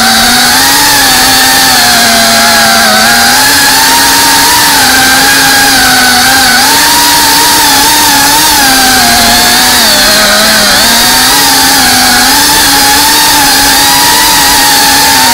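Drone's electric motors and propellers whining loudly, heard from the drone's own camera, the pitch wavering up and down as the throttle changes, with a noticeable dip about ten seconds in.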